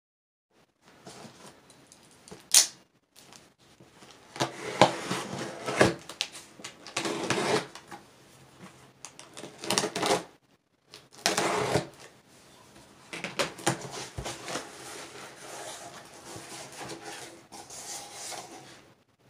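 A cardboard shipping box being handled and opened: scrapes, rustles and knocks of cardboard in irregular bursts, with a sharp click about two and a half seconds in. Near the end, the quieter rustle of foam packing peanuts.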